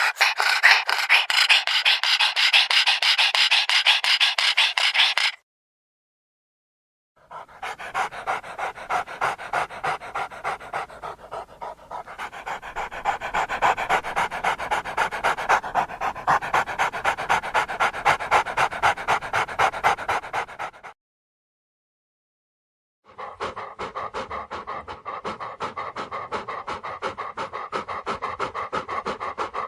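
A dog panting in quick, even breaths, in three bouts broken by short silences.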